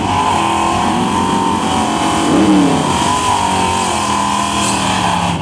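Drag car doing a burnout: its engine held at high revs while the rear tyres spin on the pavement, with a brief rise and fall in engine pitch about halfway through. A second race car's engine runs underneath.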